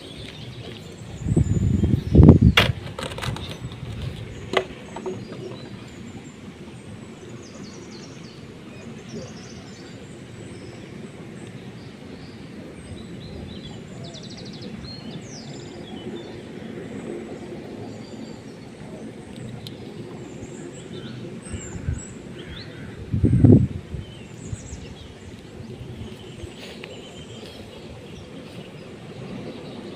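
Outdoor ambience with faint bird chirps and two brief low thumps, one about two seconds in and one about twenty-three seconds in.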